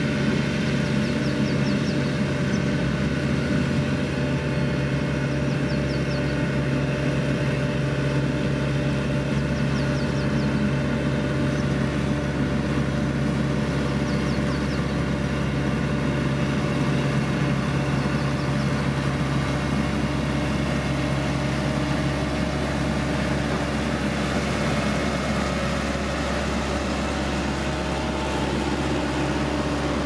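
Diesel engines of single-drum road rollers and a motor grader running steadily at close range.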